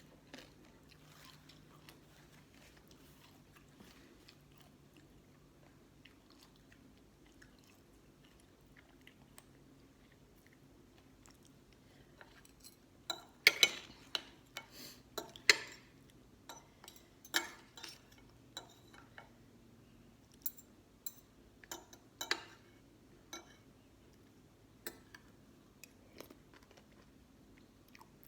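Close-up chewing of green mango salad with pickled sea crab: soft and quiet at first, then about halfway in a run of sharp, irregular crunching bites.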